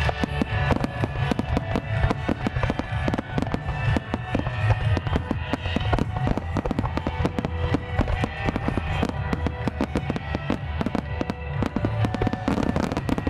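Wide starmine fireworks: rapid, dense volleys of shell bursts and crackles going off one after another, with music playing underneath.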